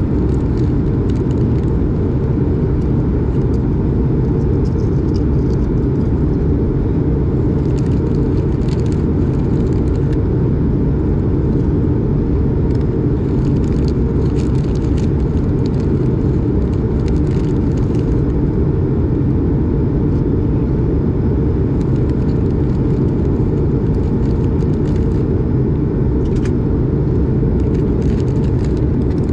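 Steady low roar inside the cabin of an Airbus A220 in flight: its Pratt & Whitney PW1500G geared turbofan engines and the airflow over the fuselage, with a faint steady whine above the roar.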